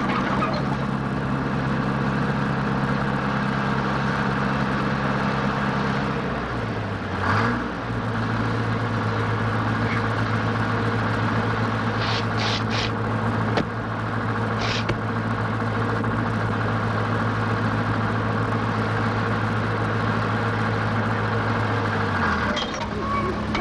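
A bulldozer's engine running steadily, its pitch dipping and picking up again about seven seconds in and once more near the end. A few brief, sharp metallic sounds come around the middle.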